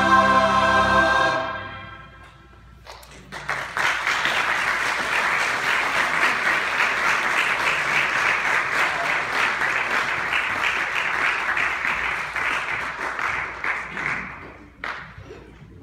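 A church choir finishes holding its final chord in the first second or so. After a short hush, the congregation applauds steadily for about eleven seconds, and the clapping dies away near the end.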